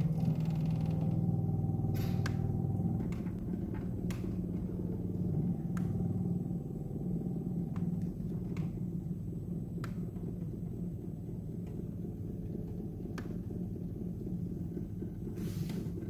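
Samsung refrigerator running with a steady low hum, loudest in the first few seconds, with a fainter higher tone that comes and goes and a few scattered light clicks.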